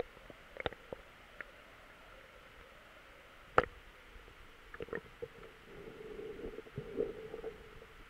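Muffled underwater sound from a camera submerged in shallow sea: scattered sharp clicks and knocks, the loudest about three and a half seconds in, and a steady hum that swells in the second half.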